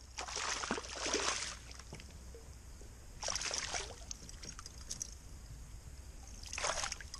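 Hooked fish thrashing and splashing at the water's surface beside a canoe, in three short bursts of splashing.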